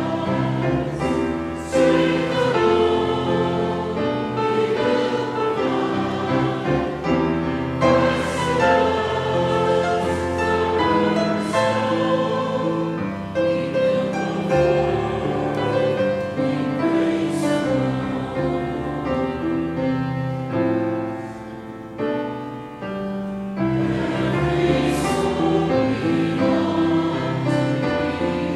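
Church choir singing a hymn with instrumental accompaniment, sustained chords moving from phrase to phrase.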